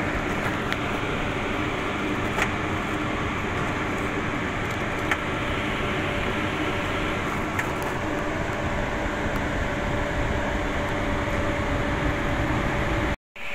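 Steady drone of running machinery with a low hum, and a few faint clicks as bone fragments are handled on a stainless-steel tray. The sound cuts out briefly near the end.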